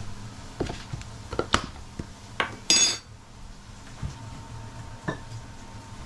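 Metal kitchen utensils, a coil whisk among them, tapping and clinking against a mixing bowl of flour: several sharp taps, then a short ringing metallic clatter about three seconds in, followed by a dull knock and a last light click.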